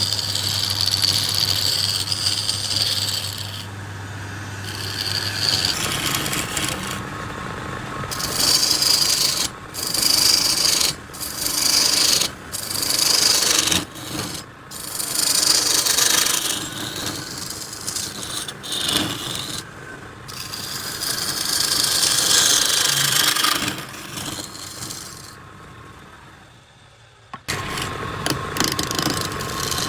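Wood being turned on a lathe: a turning tool scraping and cutting the spinning wooden pot in repeated strokes, with short gaps as the tool comes off the wood and a longer pause near the end. A low steady hum runs under the first few seconds.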